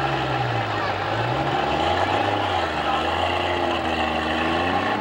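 Super stock pulling tractor's engine running loud and steady while hooked to the sled, its pitch dropping about a second and a half in and holding lower.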